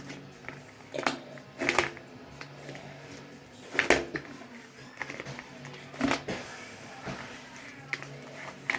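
A large, heavy fluffy slime being squeezed and pulled by hand, giving about half a dozen sharp squelching pops spread out over several seconds.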